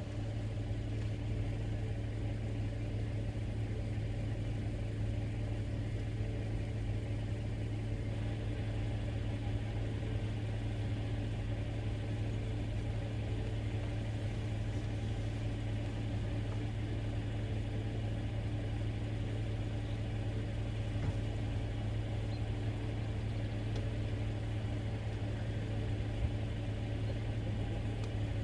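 An engine idling steadily, a low even hum that holds unchanged throughout, with a couple of faint ticks.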